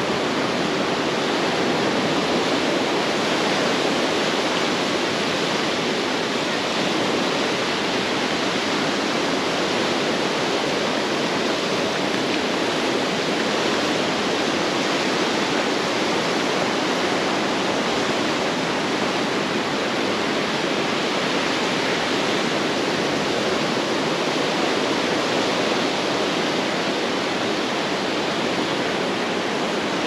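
Steady rushing wash of surf on a beach, an even noise with no distinct swell and fall of single waves.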